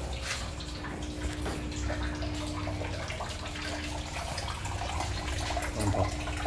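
Water running steadily, with a low steady hum underneath.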